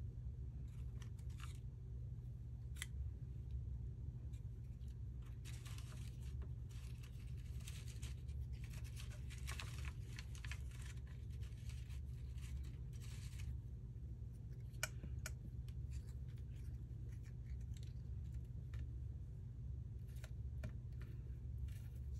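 Paper pieces being handled and worked by hand: scattered light clicks and taps, with a run of dry scratching in the middle, over a steady low hum.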